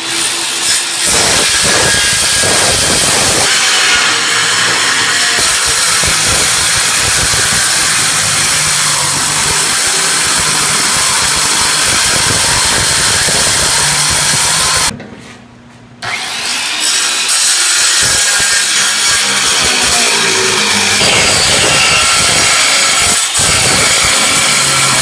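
Skilsaw circular saw cutting through an aluminum outboard engine bracket, running loud and steady under load. It stops briefly about fifteen seconds in, then starts again and keeps cutting.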